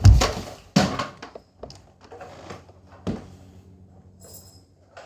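A loud thump, a second knock under a second later and another about three seconds in, with light clicks between: knocks and handling noise from Nerf gun play.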